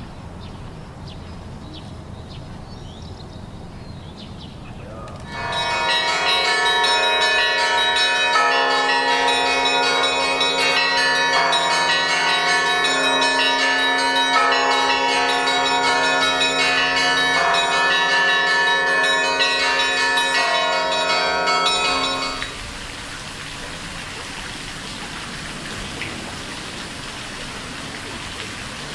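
Church bells ringing, many bells sounding together in repeated strikes, starting about five seconds in and breaking off sharply some seventeen seconds later.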